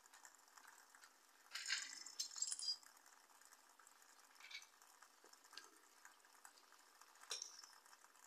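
Homemade soda-can alcohol stove burning: a faint steady hiss with scattered sputters and light metallic clinks, a cluster of them from about one and a half to nearly three seconds in and a sharper one about seven seconds in.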